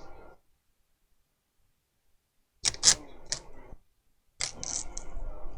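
Old adhesive band being peeled and scraped off a tablet's frame: scratchy clicks and rasping in two spells, starting about two and a half seconds in and again near the end.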